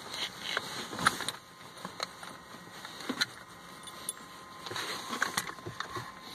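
Handling noises from an FVDI diagnostic interface and its OBD cable being handled: scattered small plastic clicks, knocks and rustling, with a cluster about a second in and another near the end.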